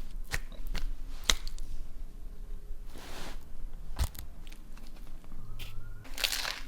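Crunching and crackling of a crusty sandwich: a scattering of sharp crunches, with a louder burst of crackling near the end.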